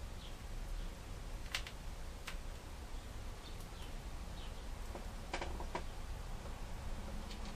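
A few sharp light clicks and taps of hands and a screwdriver working on a laptop's plastic bezel, over a steady low hum, with faint short high chirps now and then.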